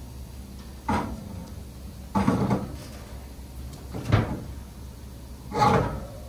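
Four separate thumps, about one every one and a half seconds, over a low steady hum.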